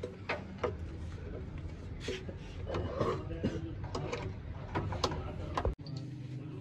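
Irregular clicks and knocks of a hand wrench working on the underside of a pickup truck, over a steady low hum.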